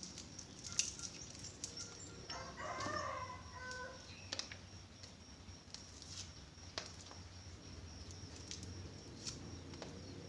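A rooster crows once, about two seconds in, the call lasting under two seconds. A few sharp clicks follow.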